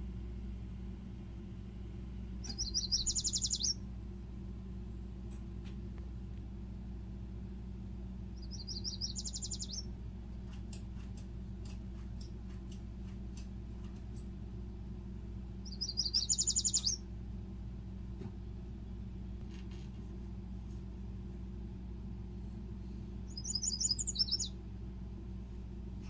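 A songbird singing four short, fast trilled phrases, each about a second long and several seconds apart, over a steady low hum.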